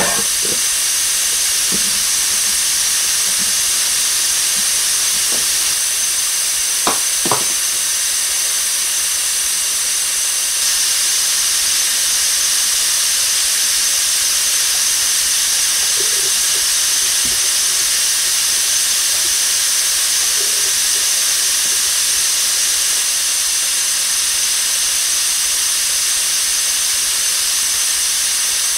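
A steady, loud hiss that holds unchanged throughout, with two short clicks about seven seconds in.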